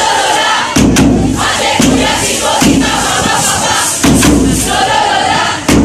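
A large group of students shouting a cheer in unison, in loud rhythmic bursts roughly once a second, over a steady crowd din.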